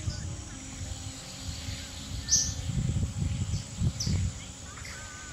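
Outdoor ambience: a low rumble, loudest about halfway through, with a few short high chirps, likely birds.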